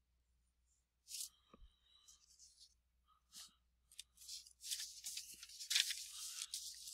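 Faint, irregular scratchy rustling with a few light clicks close to the microphone, starting about a second in and growing busier and louder toward the end.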